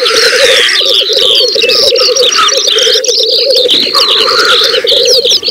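Black grouse cocks lekking: a continuous bubbling, cooing chorus from many males, broken by hissing calls, with quick high chirps above it.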